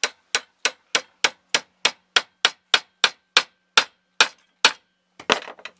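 A hammer tapping a solid copper slug, set in retaining compound, into the bored end of an old socket wrench handle: about fifteen sharp taps at roughly three a second, each ringing briefly, then a last couple of taps near the end.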